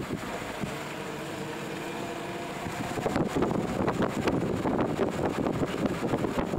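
Car driving with a window open: steady engine and road noise, then wind buffeting the microphone, louder and gustier from about halfway through.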